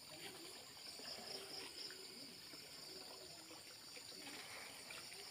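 Faint water sloshing and trickling as a person wades and gropes about in waist-deep muddy water, over a steady high hum of insects.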